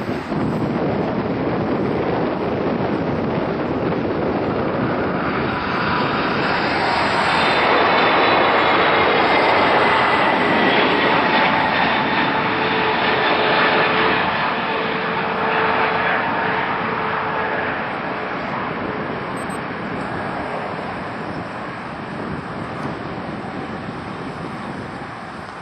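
Boeing 777 twin-jet on final approach passing low overhead: the jet engine noise swells to its loudest from about seven to fourteen seconds in, with whining tones sliding down in pitch as it goes by. The noise then fades as the aircraft moves away toward the runway.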